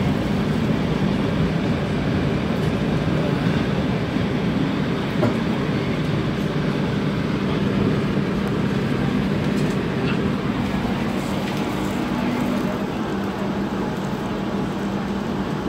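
Toronto TTC streetcar running along its rails, heard from inside the car: a steady rumble with a low, even hum.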